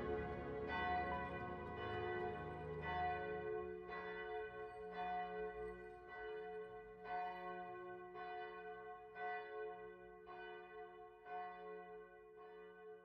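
A church bell tolling, struck about once a second, each stroke ringing on into the next. The sound gradually fades out toward the end.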